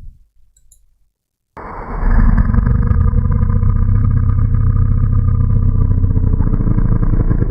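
Playback of a monster growl sound effect made in Audacity from a Freesound 'cow noise' sample: pitch-shifted, slowed to half speed, given an 8-times-a-second tremolo, compressed and now reversed. It starts suddenly about a second and a half in after a few mouse clicks, low, loud and dense, and runs on steadily, sounding aggressive and creature-like.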